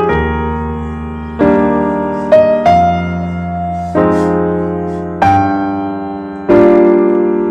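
Slow piano music: chords struck about every second and a quarter, each one ringing and fading before the next.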